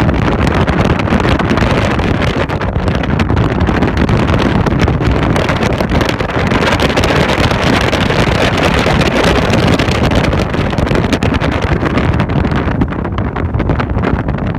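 Heavy wind buffeting the microphone on a rigid inflatable boat running at speed, over the steady rush of its engine and the water.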